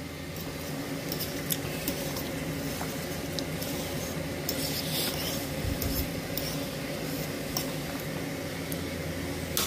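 Fork stirring fettuccine noodles in a stainless steel pot of boiling water, with light scrapes and clinks of the fork against the pot, over a steady low hum and hiss.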